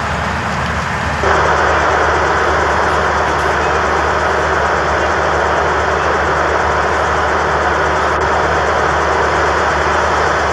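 Diesel engines of truck-mounted cranes running steadily: a low hum under a loud, even hiss that steps up louder about a second in.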